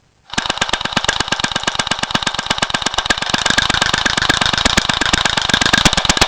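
Airsoft M4 electric gun firing one continuous full-auto burst of about six seconds, a rapid even chatter of shots that starts just after the beginning and cuts off suddenly at the end.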